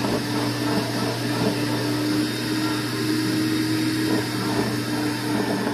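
Build-A-Bear stuffing machine's blower running, a steady whooshing hum as it churns and blows fluffy stuffing.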